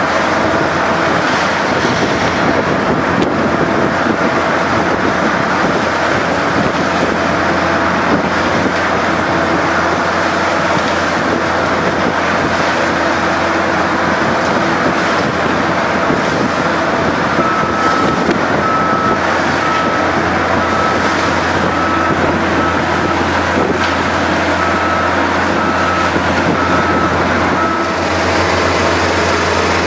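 Art's Way TOP-SPREAD bale spreader running steadily under load, shredding a bale and throwing the straw, over the steady drone of the carrying machine's engine. A row of short, evenly spaced beeps at one pitch sounds for about ten seconds in the second half.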